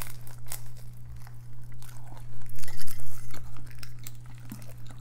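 Close-up eating sounds: crisp seaweed sheets crunching and crinkling as they are bitten, torn and handled, with chewing. A cluster of louder crunches comes about halfway through, over a steady low hum.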